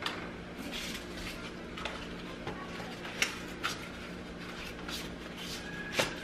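Scattered light clicks, taps and soft rustling from handling packaging and small containers at a kitchen counter, over a steady low hum. The sharpest taps come about three seconds in and near the end.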